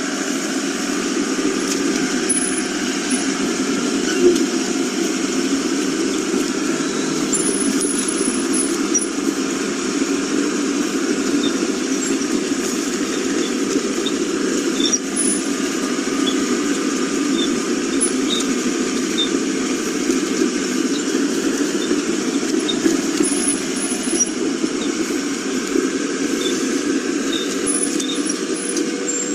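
Heavy diesel construction machinery running steadily.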